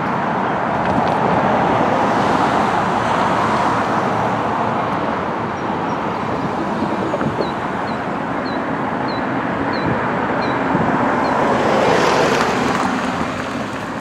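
Road traffic passing a railroad crossing, with wind on the microphone. About halfway through, a faint crossing bell strikes about once every two-thirds of a second for a few seconds as the signals flash and the gates lower, then stops.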